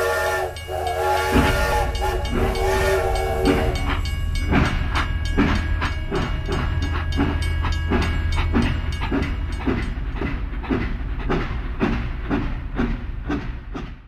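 Steam train whistle sounding a chord in three blasts, then a steady chugging rhythm at about two beats a second over a low rumble.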